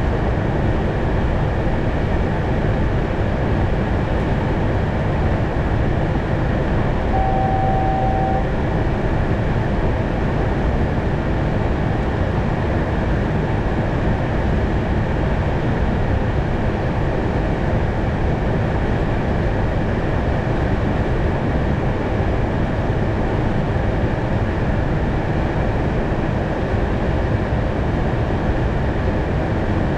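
Steady flight-deck noise of an Airbus A220 in flight on approach: an even rush of airflow and engine noise with no change in level. A short, single steady tone sounds for about a second, some seven seconds in.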